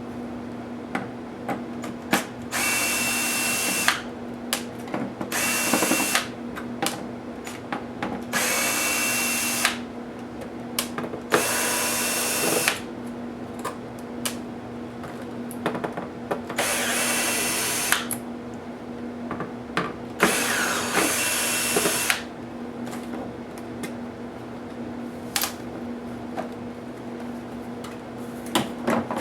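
Cordless electric screwdriver removing laptop screws. It runs in about seven short whirring bursts of a second or so each, with small clicks of screws and plastic parts being handled in between.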